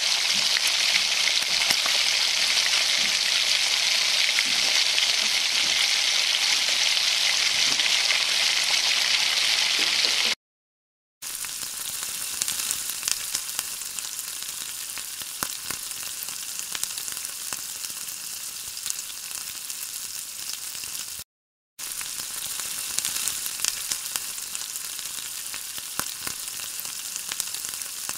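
Dried fish (shutki) frying in a spiced oily masala in a metal pan, a steady sizzle with scattered ticks as a spatula stirs it. The sizzle is louder for about the first ten seconds, then cuts out briefly and comes back quieter, with a second brief cut about two thirds of the way through.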